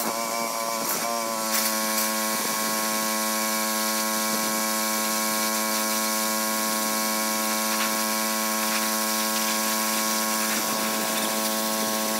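Pressure washer running steadily with a constant hum over the hiss of the water jet on the fiberglass boat hull; the hum's pitch settles in the first second or so, then holds level.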